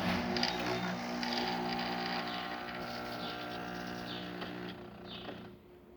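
Jura C9 automatic coffee machine running through its cappuccino cycle: a steady mechanical hum that starts abruptly, holds for about five and a half seconds, then drops away.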